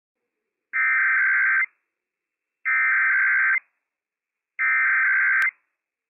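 NOAA Weather Radio Emergency Alert System SAME header: three identical bursts of warbling two-tone digital data, each about a second long, with a second's gap between them. This is the coded header that opens a Required Weekly Test. A brief click comes near the end of the third burst.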